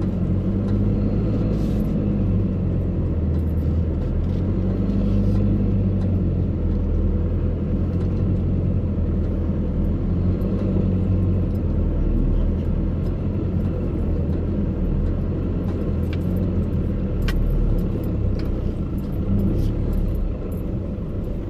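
Four-wheel drive's engine running steadily under load as it climbs a steep, rocky dirt track, heard from inside the cab, with scattered clicks and knocks over the drone.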